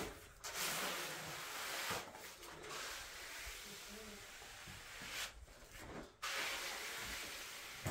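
A steady hissing, rubbing noise in long stretches, broken by short pauses about half a second in, around two seconds, and for nearly a second a little after five seconds.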